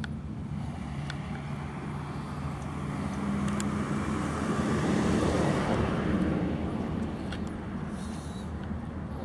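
A car passing on the street, its noise swelling and fading over a few seconds about halfway through, over a steady low hum.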